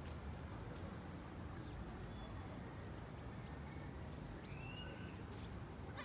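Quiet outdoor background: a steady low rumble, with a faint short chirp about four and a half seconds in.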